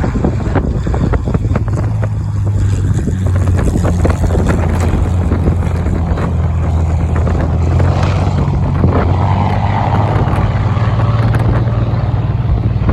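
Supermarine Spitfire's piston engine giving a steady low drone, under heavy wind buffeting and crackling on the microphone.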